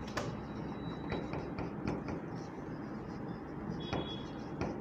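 Marker pen writing on a whiteboard: faint scattered taps and scratches of the strokes over a steady low room hum.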